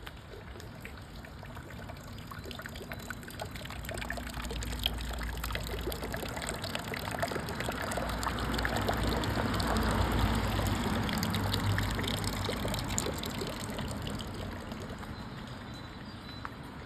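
Water trickling and splashing, with many small droplet clicks over a steady rush; it grows louder toward the middle and fades again near the end.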